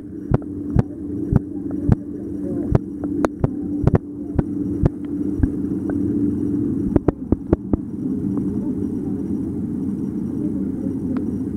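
Dog swimming pool heard from underwater: a steady low rumble with a hum. Sharp, irregular clicks come about twice a second for the first several seconds, with a quick cluster about seven seconds in, and then the rumble carries on alone.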